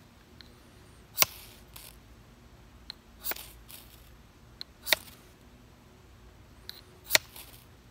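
Old Hickory butcher knife scraped down a bayite keychain ferro rod in four quick strokes about every two seconds, each a sharp rasp with a short hiss after it, throwing sparks into pine needles. A faint click comes just before each stroke as the blade is set on the rod.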